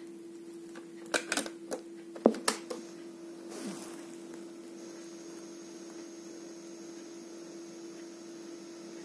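Philips AM 174 cassette player being loaded: a series of sharp plastic clicks and clacks as the cassette is pushed in and the door snapped shut, then a brief mechanical swish as the play key engages. A steady electrical hum runs underneath.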